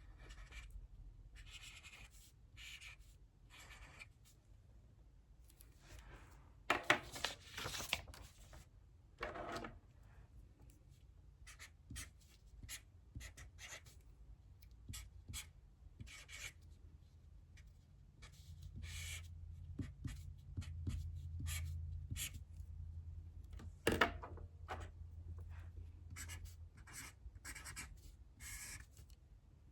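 Handwriting on paper: short, irregular scratching strokes of a writing tool working out problems, with a few louder strokes. A low hum comes in for several seconds past the middle.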